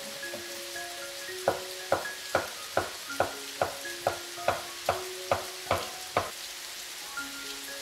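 Kitchen knife slicing button mushrooms on a wooden cutting board: about a dozen even knocks of the blade on the board, a little over two a second, starting about a second and a half in and stopping about six seconds in.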